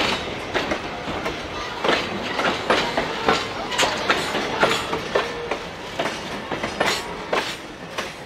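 Wheels of a passing passenger coach and caboose clicking over rail joints, a repeated clickety-clack over a rolling rumble that fades toward the end as the last car goes by.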